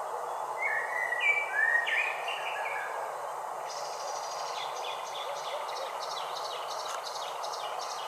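Songbirds singing: a few clear whistled notes, some falling in pitch, in the first three seconds, then a fast run of short high notes for several seconds, over a steady background hiss.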